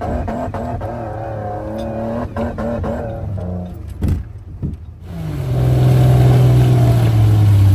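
Off-road vehicle engines revving as they work through deep mud. For the first five seconds the engine is heard from inside a car's cabin, its pitch wavering under load, with several knocks as the car lurches. Then there is a sudden change to a louder engine revving hard close by.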